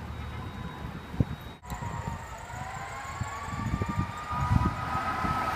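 Fire truck's Federal Signal Q2B mechanical siren winding up, its wail climbing slowly in pitch over a few seconds, with the truck's engine rumbling underneath. The sound breaks off briefly about a second and a half in, then the rise begins.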